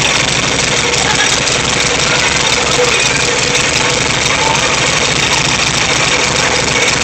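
Freshly rebuilt VW 1600 cc single-port air-cooled flat-four engine running steadily during its first start-up after the rebuild.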